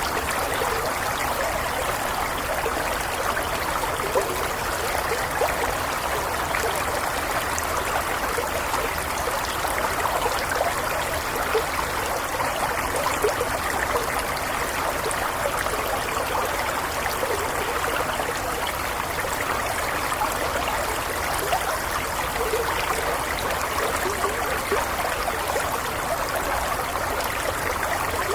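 Small stream flowing and trickling steadily over stones, with fine bubbling and splashing detail.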